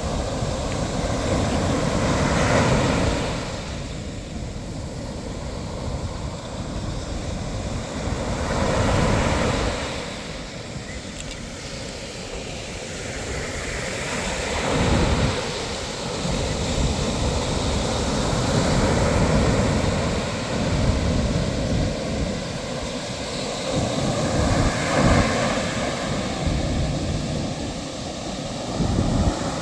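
Sea waves washing onto the shore, swelling and falling back about every five to six seconds, with wind rumbling on the microphone.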